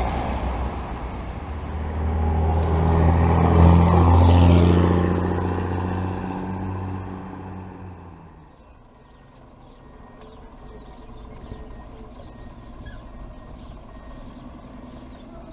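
Diesel engine of a city bus running as the bus drives off along the street, with passing traffic; the sound swells to its loudest about four seconds in and fades away by about eight seconds, after which only faint background sound remains.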